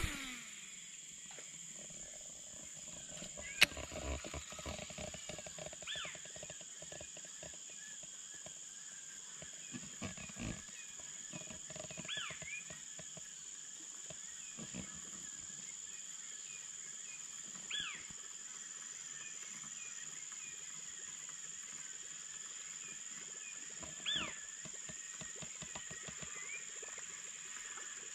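Outdoor night-style ambience of insects droning steadily at a high pitch. A short call from an unseen animal repeats about every six seconds, and there is one sharp click a few seconds in.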